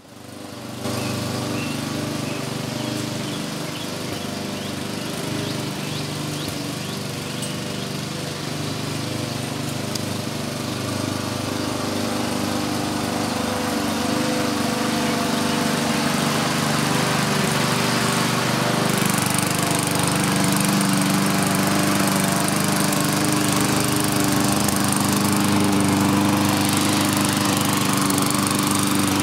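Walk-behind gas rotary lawn mower's small single-cylinder engine running steadily while mowing dry, sparse grass and dirt. The sound fades in at the very start and gets a little louder and hissier in the second half.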